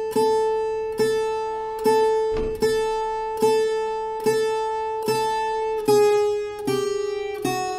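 Viola caipira played slowly, single notes plucked on the first pair of strings. The same note rings out about once a second seven times, then steps down through three lower notes near the end.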